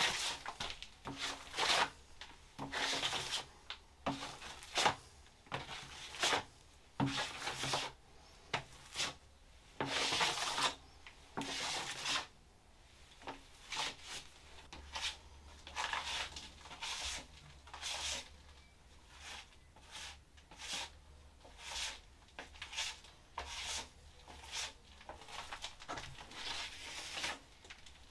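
A hand tool scraping across a wall in repeated short, irregular strokes, about one to two a second, as tiling work goes on.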